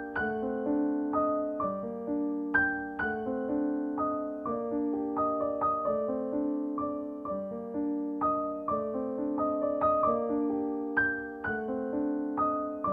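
Background music: a gentle piano melody over chords, with notes struck a few times a second, each fading away.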